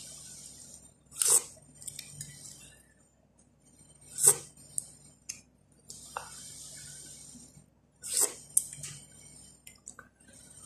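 Close-up eating sounds: a person chewing soft bread, with a wet mouth smack every few seconds, three in all, and a few light clicks of dishes or cutlery between them.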